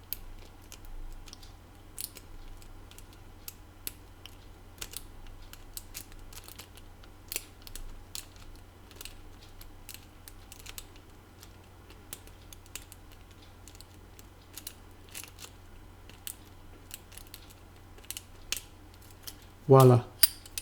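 Lock pick scraping and clicking against the pins inside a padlock while a tension wrench holds light pressure: many small, irregular ticks as the pins are felt for and set, until the lock opens near the end.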